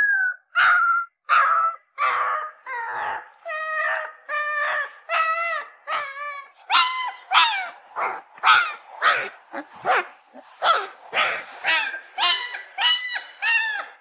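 A puppy crying: a rapid series of short, high-pitched whining cries, about two a second, many falling in pitch.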